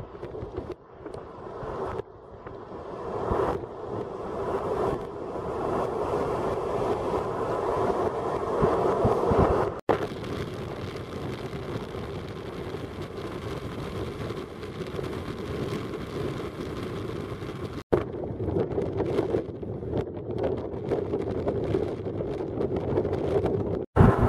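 Gusty wind on the microphone, a rushing noise that swells and falls and breaks off abruptly twice.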